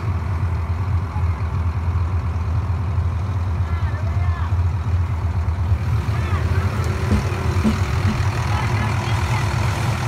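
Combine harvester's diesel engine running at a steady low hum, heard through the open cab door.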